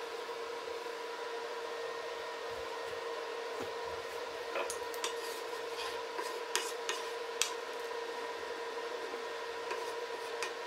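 A wooden spoon stirring soup in an enamelled cast-iron Staub pot, with a few sharp taps of the spoon against the pot about halfway through, over a steady hum.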